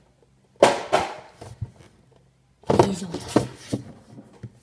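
Two bursts of handling noise, about a second apart, of rustling, scraping and light knocks as a Funko Pop figure's box and packaging are handled.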